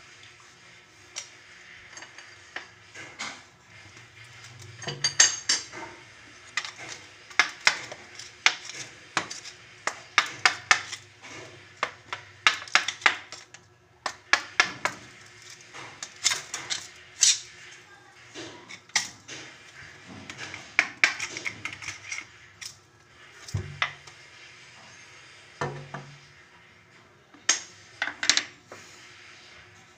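Hard objects clinking and clattering as they are handled, in quick irregular runs of sharp knocks with short pauses between.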